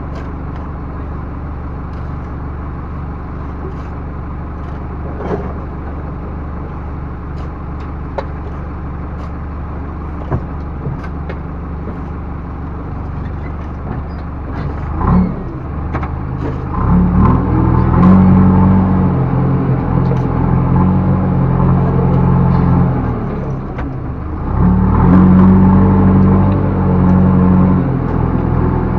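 Backhoe loader's diesel engine idling steadily with a few sharp clanks, then revving up about halfway through, easing off briefly and revving up again near the end.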